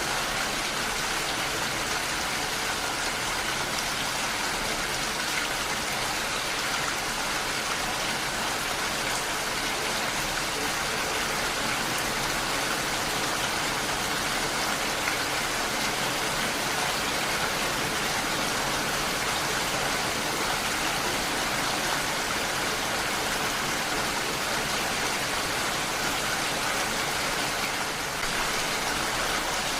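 Heavy rain falling steadily, an even wash of drops hitting surfaces.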